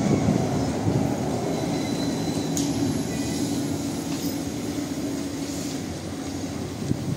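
Trolleybus running past on the street: a steady low rumble with a steady electric hum, slowly fading, and one sharp click about two and a half seconds in.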